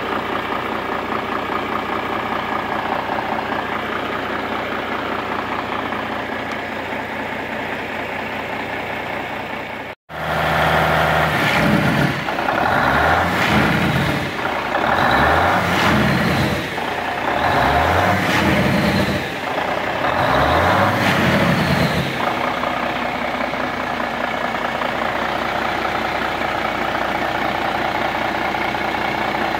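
Freshly rebuilt Cummins N14 inline-six diesel in a Kenworth T800 idling steadily. After a sudden cut about a third of the way in, it is revved up and down several times in quick succession, then settles back to a steady idle.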